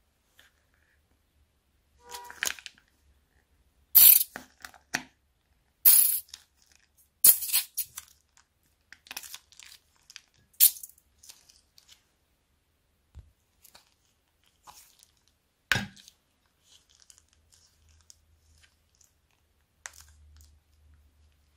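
Small plastic pouches of liquid slime crinkled, torn open and squeezed out by hand: a string of sharp crinkling and tearing sounds, loudest in the first half, then sparser and softer squeezing towards the end.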